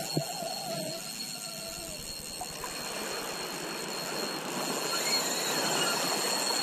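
Daiwa spinning reel's drag giving out line in a steady high whine as a big hooked fish, which the angler takes for a ray, runs off with the line.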